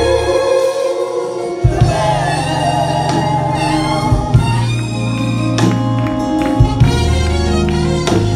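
Gospel song: voices singing long, wavering notes over a band with a steady bass line and regular drum hits.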